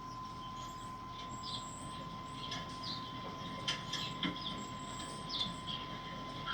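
Barn ambience: a steady high thin tone, with scattered short high chirps and a few clicks near the middle.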